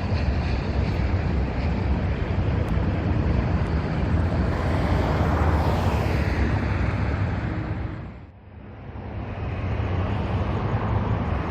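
Steady low engine rumble, with a louder swell about five seconds in and a brief drop-out about eight seconds in.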